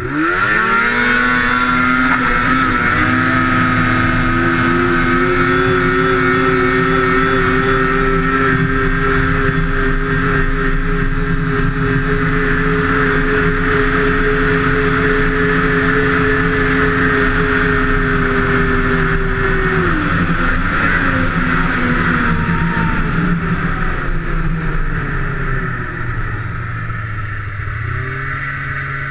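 Two-stroke snowmobile engine revving up sharply, then held at a steady high pitch for about seventeen seconds. The pitch drops about twenty seconds in and settles lower near the end.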